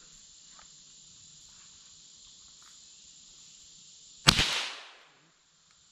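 A single rifle shot about four seconds in: a sharp crack with a short echo trailing off through the trees, fired from a scoped rifle. Under it runs a steady high drone of insects.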